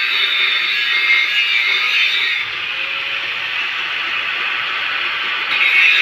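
Angle grinder disc running against steel, a steady high-pitched grinding hiss. Its tone dips about two and a half seconds in and brightens again near the end.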